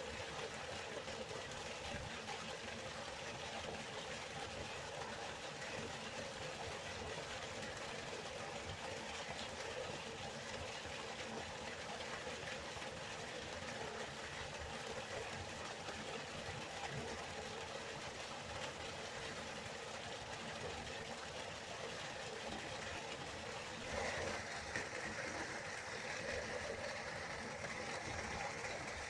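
Steady rushing of river water, an even wash of noise that grows a little louder and brighter near the end.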